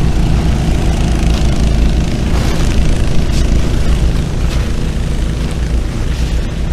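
Small portable gasoline water pumps, 3-inch Honda and Subaru discharge pumps, running steadily to fill the water-filled dam.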